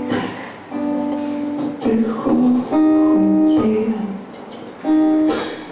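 Live song: a woman's voice holding long sung notes, three of them in turn, over acoustic guitar accompaniment.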